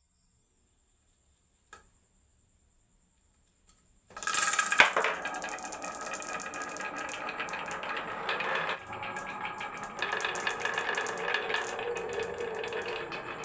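Marbles rolling and clattering down a marble run track: near quiet with two faint clicks at first, then about four seconds in a dense, continuous rattle of many small clicks and knocks.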